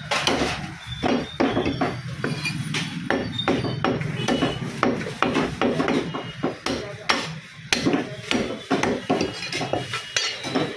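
Butcher's cleaver chopping mutton on a chopping block: quick, irregular chops, a few each second.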